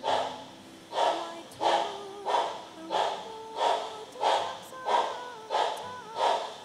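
HO scale model steam locomotive's sound decoder chuffing at a slow, even beat, about three chuffs every two seconds, with faint steady tones underneath.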